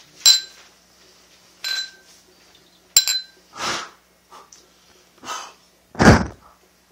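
Stemmed drinking glasses clinking together in a toast, three ringing clinks in the first three seconds. Then come short puffs of breath and one loud, sharp exhale near the end.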